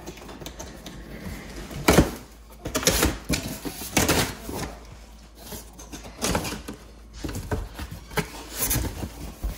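Cardboard shipping box being opened by hand: packing tape slit and torn, flaps pulled and scraped open, with irregular rustling and a sharp loud stroke about two seconds in.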